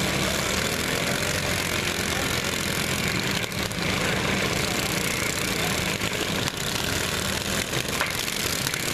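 Several small lawn mower engines running together in a steady drone, with a few light knocks near the end.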